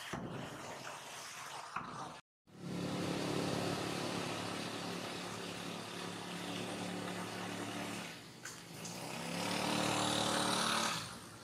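A vehicle engine running steadily. It drops away about eight seconds in, then comes back louder near the end. The sound cuts out completely for a moment about two seconds in.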